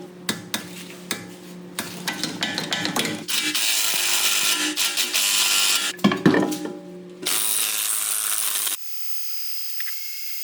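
Workshop tool noises over music: a run of clicks and knocks, then two stretches of hissing noise with more knocks between them.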